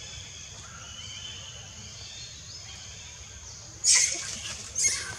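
Faint forest background with light bird chirps, broken about four seconds in by two short, loud, high-pitched sounds about a second apart.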